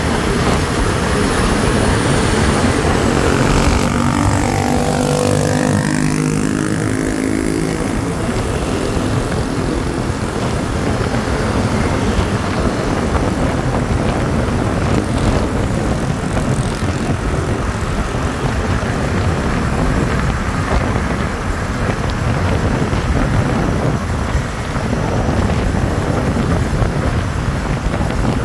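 Steady wind and road noise from a moving motorcycle, heard from the rider's seat. About four seconds in, a passing dump truck's engine and tyres sweep past, dropping in pitch as it goes by.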